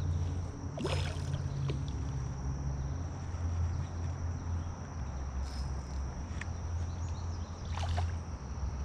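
A hooked fish splashing at the surface of pond water twice, about a second in and again near the end, over a steady high insect buzz and a steady low hum.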